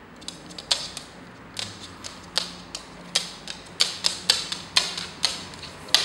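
A female eclectus parrot tapping and knocking with its beak and feet on a wooden floor and a small flat case: a dozen or more sharp, irregular clacks, some in quick runs.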